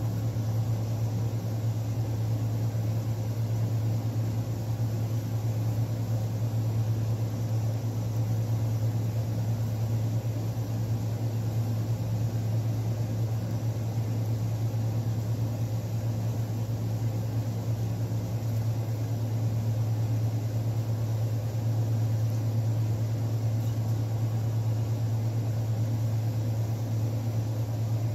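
A steady low mechanical hum that holds one pitch and level throughout, with a faint hiss over it.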